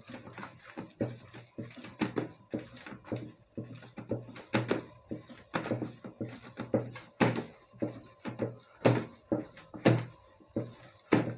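Hands kneading chapati dough in a plastic basin: a run of short, irregular thumps, about two to three a second, as the dough is pushed down and turned against the bowl.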